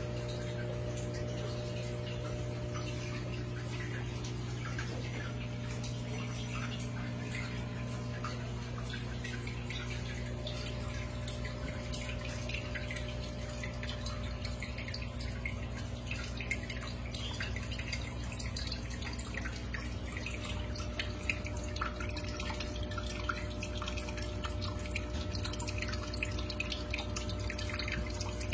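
Water dripping and trickling in a planted paludarium, over a steady low hum. The drips grow more frequent about halfway through.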